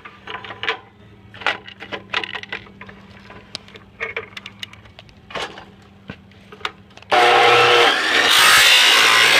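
Scattered knocks and clicks of plastic blaster parts being handled. About seven seconds in a chop saw starts abruptly and cuts loudly into the Nerf blaster's plastic.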